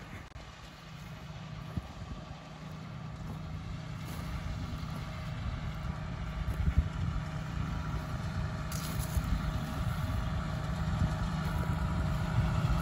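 Tractor engine running steadily under load as it pulls a strip-till cultivator through the field, growing louder as it approaches.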